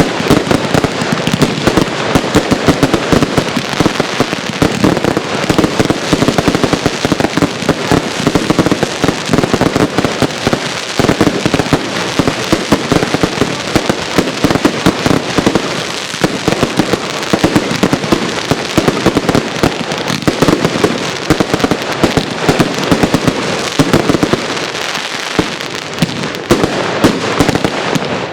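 Firework cake going off: a rapid, unbroken string of shots and crackling bursts, easing briefly about twenty-five seconds in.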